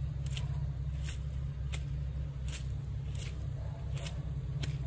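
Footsteps squelching on waterlogged grass, a steady walking pace of about seven steps in five seconds, over a steady low rumble.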